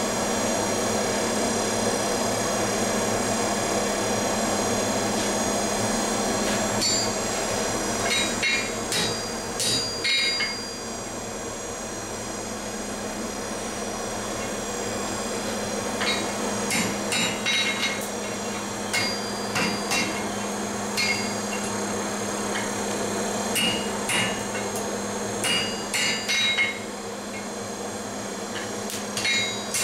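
A gas torch hissing steadily for the first several seconds, then a blacksmith's hammer striking hot iron on an anvil in groups of quick blows with pauses between, each blow ringing briefly.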